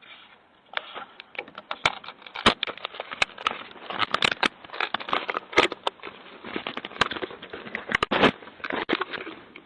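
Ring doorbell camera being handled and pried at by someone trying to pull it off, heard through its own microphone: a rapid, irregular run of close knocks, clicks and scraping.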